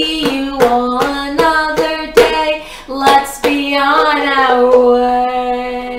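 A woman singing a children's goodbye song, patting her hands on a wooden tabletop in a steady beat, about two or three pats a second.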